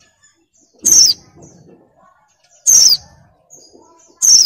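Female white-eye (pleci) in breeding condition calling repeatedly: three loud, short, high whistles that slide downward, just under two seconds apart, with faint chirps in between. This is the call used to draw song from male white-eyes.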